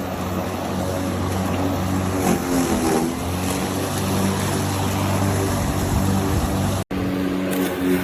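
Gasoline walk-behind lawn mower engine running steadily. Near the end the sound drops out for an instant, and after that the engine's pitch sits slightly higher.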